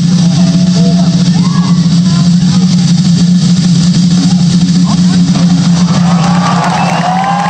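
Live drum kit played in a solo through an arena PA, loud and dense, the toms and kick blurring into a heavy rumble in the phone recording. The crowd begins whooping and cheering near the end.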